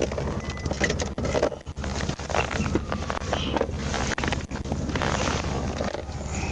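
Wind and handling noise on the microphone, with scattered rustles, clicks and knocks over a steady low hum.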